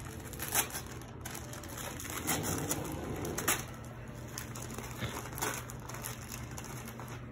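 Tissue paper and a paper gift bag rustling and crinkling as a present is pulled out and unwrapped, with short irregular crackles every second or so.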